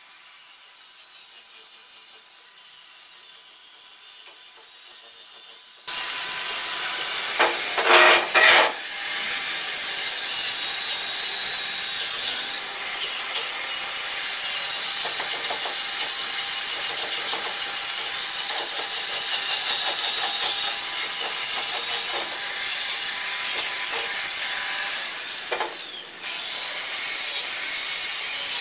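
A handheld power tool starts about six seconds in and runs steadily against wood, with a louder scraping burst about two seconds later, typical of sanding down a wooden chair. Before it starts there is only a faint background.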